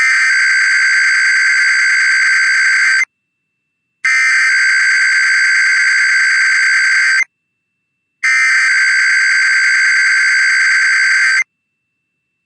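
Emergency Alert System SAME header: three loud bursts of warbling digital data tones, each about three seconds long with about a second of silence between, encoding an IPAWS Required Weekly Test alert.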